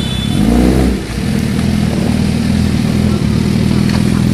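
Engine of a three-wheeled trike revving up in the first second, dropping back, then running steadily as the trike pulls away.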